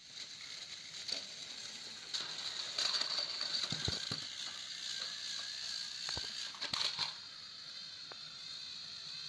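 Battery-powered toy train motors whirring as the engines strain along plastic track, with several clicks and clattering knocks as engines tip over and drop off the track, the loudest around four and seven seconds in.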